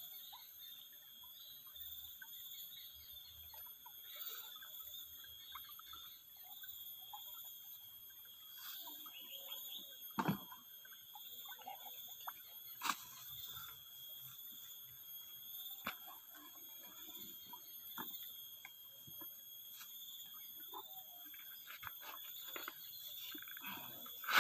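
Steady high-pitched insect chorus, with a few faint clicks and knocks, the clearest about ten and thirteen seconds in.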